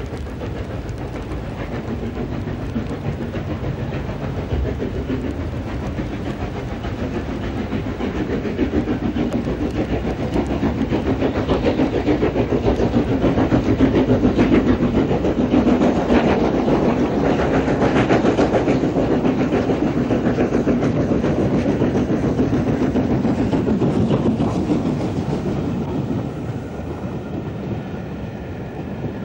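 Southern Railway N15 'King Arthur' class 4-6-0 No. 777 Sir Lamiel hauling a train past at speed: a rapid run of exhaust beats and running noise grows louder to a peak about halfway through as the engine passes. It then eases as the coaches roll by near the end.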